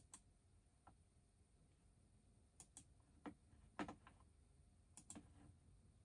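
Faint, scattered clicks of a computer mouse and keyboard being worked, about ten in all at irregular intervals, in an otherwise quiet room.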